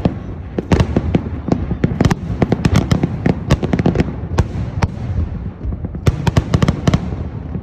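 Fireworks display: rapid crackling bangs and pops in dense clusters over a continuous low rumble of booms, thinning out near the end.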